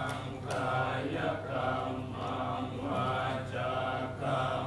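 Buddhist monks chanting in unison: a low, even, rhythmic male recitation that pulses about twice a second.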